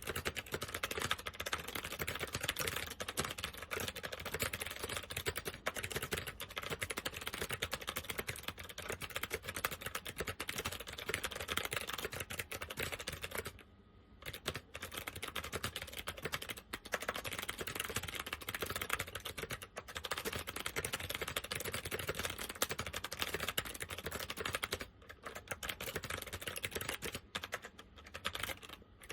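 Fast continuous typing on a mechanical keyboard with SMK second-generation clicky switches, the keys clicking densely with a few brief pauses. The switches are worn and uncleaned.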